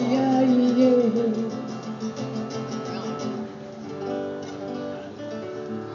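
A held sung note that bends and falls away about a second in, then picked notes on an acoustic guitar during a sound check.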